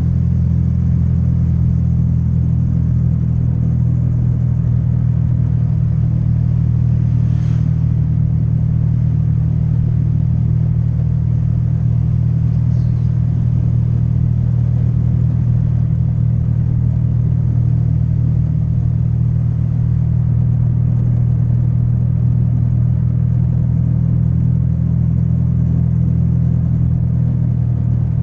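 Steady low rumble of a Honda Vario 150 motor scooter ride, with wind and road noise on an action camera's built-in microphone.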